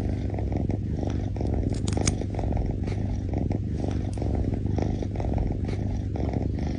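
Domestic cat purring steadily, with a few faint clicks about two seconds in.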